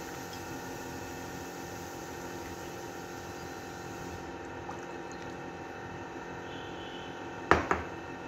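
Chicken korma being spooned out of the pot to serve, over a steady electrical hum. Two sharp knocks near the end: the serving spoon striking the cookware.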